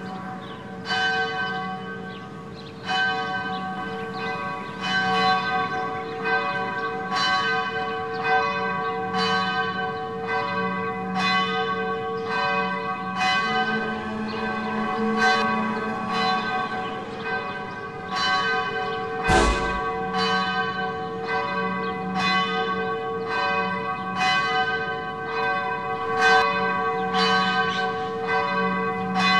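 Church bells ringing steadily, about one strike a second, their tones ringing on over one another. A single deep thump comes about two-thirds of the way through.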